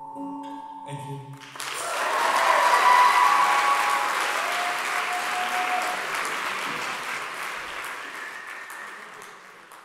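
The band's last chord rings out, then an audience breaks into applause about a second and a half in; the applause swells and then gradually fades away.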